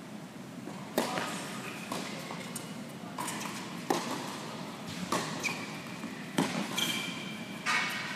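Tennis rally on an indoor hard court: five sharp pops of the ball off racquets and court, one every one to three seconds, echoing in the hall, with short high squeaks between them.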